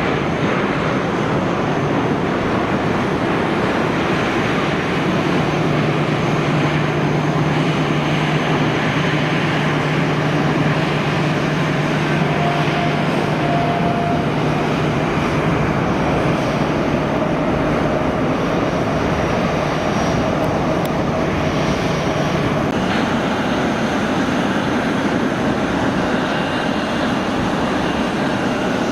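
Jet airliner engines running at the airport: a steady, loud rush, with a low hum added from about five seconds in until about halfway through.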